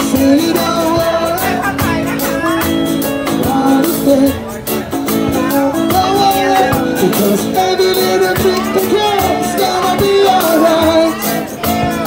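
Live reggae band playing with a sung lead vocal: acoustic guitar, drum kit and a strapped hand drum, the voice through a small amplifier.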